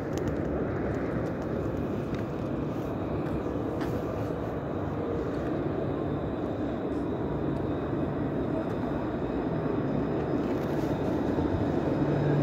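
Steady rumble and hum of a tram running on its rails, heard from on board.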